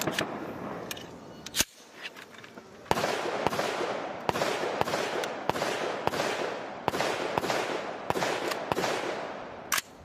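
Rifle fire from many shooters on a firing line. A few single shots come first. About three seconds in, a dense run of overlapping shots begins, several a second with a lingering echo, and it ends in one sharp crack.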